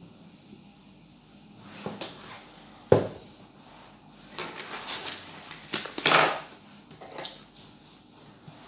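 Marker pen rubbing on a whiteboard as strokes are drawn, with a sharp knock about three seconds in, then a few softer knocks and rustles.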